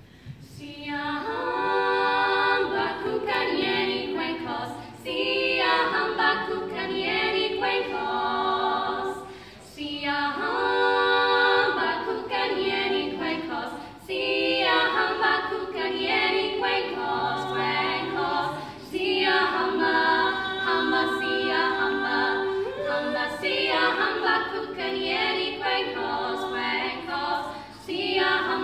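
Three female voices singing a Zulu song a cappella in harmony. They come in about a second in and sing in phrases, with a short breath gap every four or five seconds.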